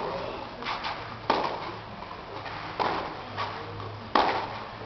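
Tennis rally: rackets striking the ball in turn, a sharp pop about every one and a half seconds, with fainter taps of the ball between strikes.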